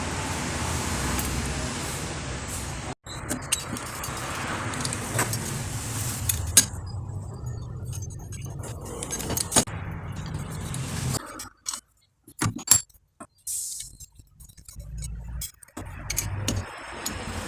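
Small metal parts clinking and clicking as sprocket bolts, lock plates and nuts are handled and fitted to a motorcycle's rear sprocket hub. A steady low hum runs underneath, and the sound cuts out abruptly several times in the second half.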